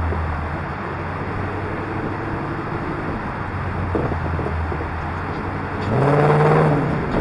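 Car on the move: a steady low engine drone under road noise. About six seconds in, an engine revs up briefly, rising in pitch, and this is the loudest moment.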